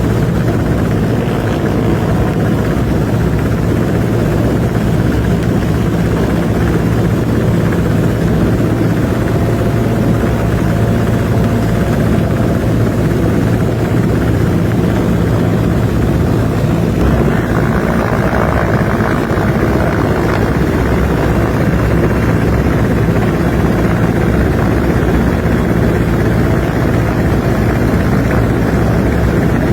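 Helicopter running steadily at close range, its rotor and engine noise continuous; just after halfway a higher hiss grows louder.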